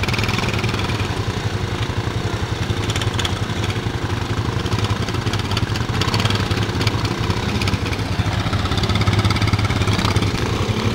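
ATV engine running steadily at low revs as the quad wades through deep flood water, with water sloshing and splashing around it.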